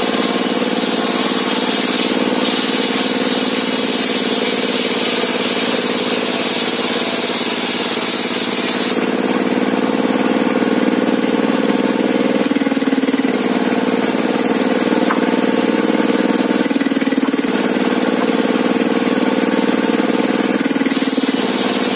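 Sawmill engine running steadily. Its tone shifts briefly three times, about halfway through, past the three-quarter mark and near the end.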